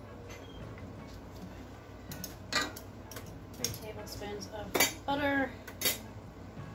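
Metal spoon clinking and tapping against a cooking pot and kitchen dishes while butter is spooned into the lemon pie filling: a few sharp clinks in the second half, one of them ringing briefly.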